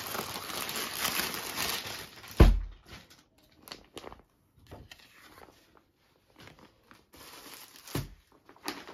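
Plastic packaging of a suit set rustling and crinkling as the fabric is unpacked and handled. A heavy thump comes about two and a half seconds in, and a softer one near the end.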